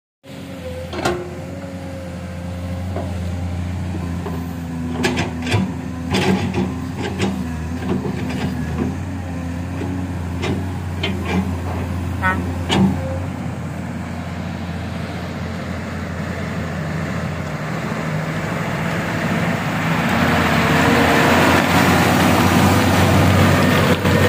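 Heavy coal-hauling dump truck's diesel engine over a steady engine hum, with a scatter of sharp clanks and knocks in the first half. Over the last several seconds the truck grows louder as it comes up and passes close.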